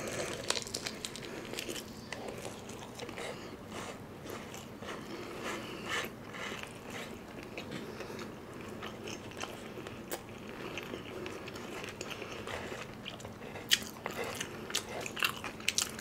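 Close-miked chewing of a bite of crispy fried chicken: the breading crackles and crunches in small sharp clicks. There are louder, denser crunches from about three-quarters of the way in to the end.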